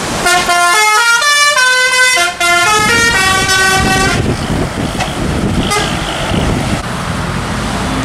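A tour bus's telolet horn playing a quick tune of changing notes, several horn tones sounding together, for about four seconds. It stops and gives way to the bus's engine and road noise.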